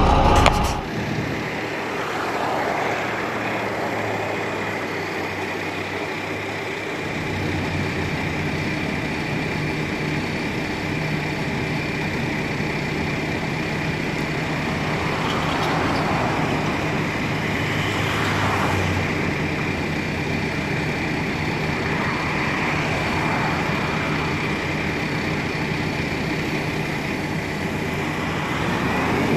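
Crane truck engine running steadily, with a steady high whine over its low hum.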